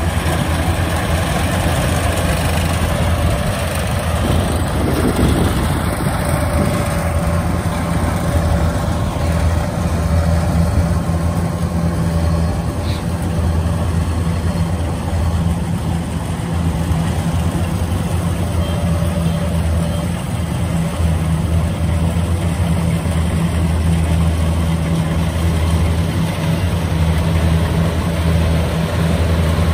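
Engine of a tracked rice combine harvester running steadily, a constant low drone with no change in pitch.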